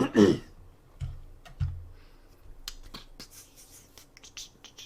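A brief word at the start, then two low thumps and a quick, irregular run of sharp clicks and taps from a computer mouse and keyboard being worked.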